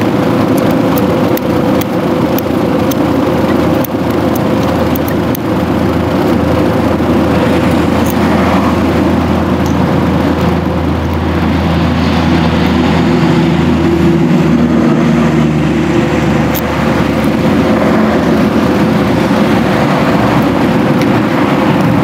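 A motor engine running steadily, with a low hum and tones that shift a little about halfway through. Scattered faint clicks sound over it.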